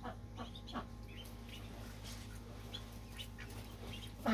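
Newly hatched ducklings peeping faintly: scattered short, high cheeps.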